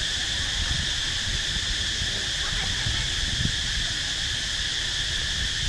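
Steady high-pitched drone of insects calling without a break, over a low rumble.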